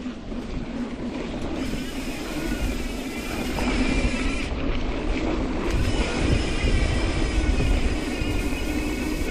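Mountain bike riding along a dirt trail: tyre and frame rattle noise mixed with wind on the microphone, getting louder about four seconds in as the bike picks up speed.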